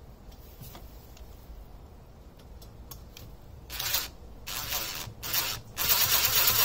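A DeWalt 20V MAX XR cordless drill-driver drives a screw into the metal fence housing. After a few faint handling clicks, the drill runs in three short bursts a little past halfway, then runs steadily and louder near the end.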